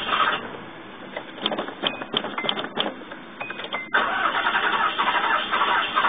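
A Nissan V6 cranking on its starter without catching, stopping about half a second in; after a quieter gap with a few clicks, the cranking starts again about four seconds in. The owner puts the failure to start down to a blown head, with the engine firing on one cylinder at most.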